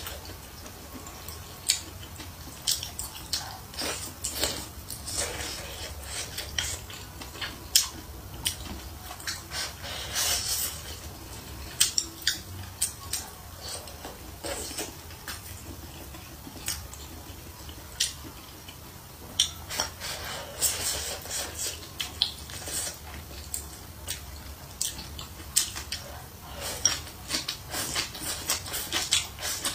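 Close-up eating sounds: wooden chopsticks clicking against a porcelain rice bowl, with slurping of noodles and chewing. Sharp clicks come every second or so, with longer slurps about a third and two-thirds of the way through.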